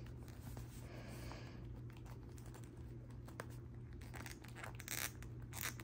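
Faint rustling and light clicks of small plastic parts being handled, as an action figure's accessory sword is worked into the figure's snug hand. There are a few sharper clicks near the end.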